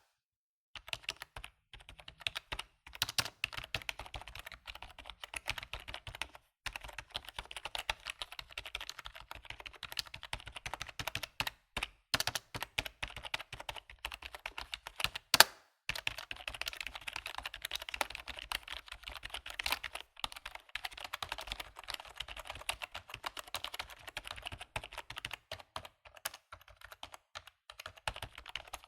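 Computer keyboard typing: a steady run of rapid keystrokes with a few brief pauses and one much louder key strike about halfway through.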